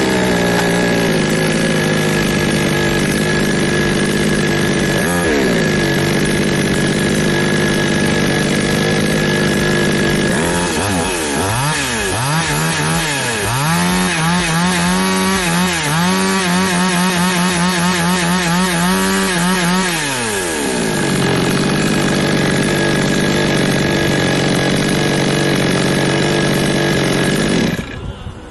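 Small gas-powered chainsaw engine running at a steady note, then revved up and down repeatedly for about ten seconds before settling back to a steady run. The sound cuts off suddenly near the end.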